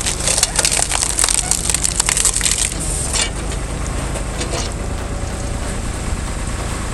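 Wood cracking and splintering under a heavy machine, over the steady drone of its diesel engine; the crackling is densest in the first three seconds and then thins to scattered snaps.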